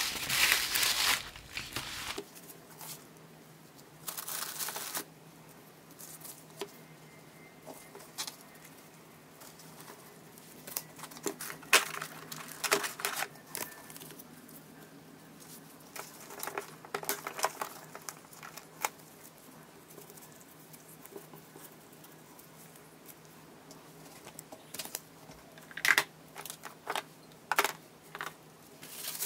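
Tissue paper and packaging crinkling and rustling in short, scattered bursts as gloved hands fold pink tissue paper and lay down sticker sheets and a notepad, with a few light taps, over a faint steady hum.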